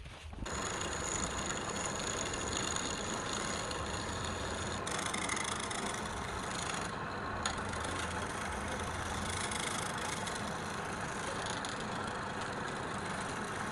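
A wood lathe running with a steady machine noise, switching on about half a second in; a thin high whine sits over it for the first five seconds or so.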